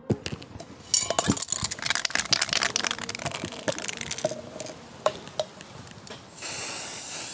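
Aerosol spray-paint can being shaken, its mixing ball rattling fast, then a steady hiss of paint spraying from about six seconds in.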